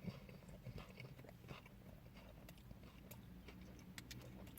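Faint chewing of a chicken burger, soft mouth clicks scattered through, over a low steady hum.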